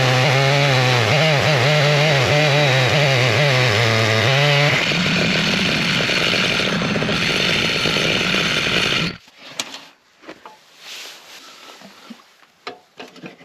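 Stihl MS881 chainsaw in an Alaskan mill running under load through an elm log, its engine pitch wavering as the chain bites. About five seconds in the note loses its steady pitch and turns rougher, and around nine seconds the saw sound stops abruptly, leaving faint knocks and clicks.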